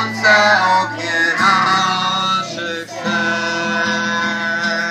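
A group of children and adults singing a Polish welcome song together with instrumental accompaniment, ending on a long held note.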